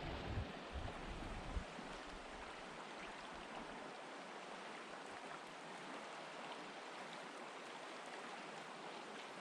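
Steady rush of flowing river water, with low wind rumble on the microphone during the first second and a half.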